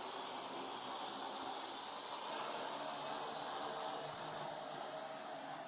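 Parrot AR.Drone quadcopter's rotors buzzing faintly high overhead under a steady hiss, growing slightly fainter near the end.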